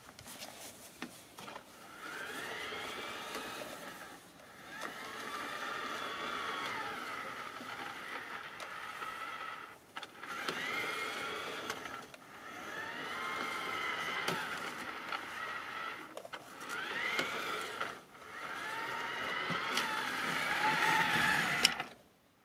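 LGB garden-railway locomotive's electric motor and gearing whining as it pushes a snowplow through snow, coming in surges of about two seconds with the pitch rising and falling, then stopping abruptly near the end.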